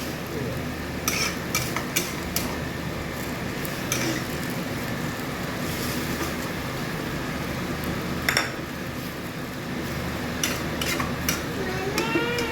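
A metal spatula clinking and scraping against a wok in scattered strokes, over a steady sizzle of tofu cooking on a high gas flame.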